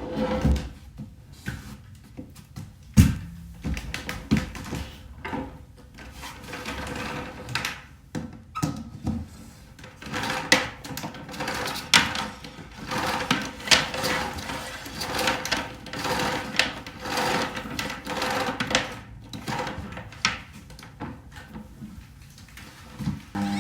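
Small plastic beads clicking and rattling as they are handled, with irregular taps and rustles.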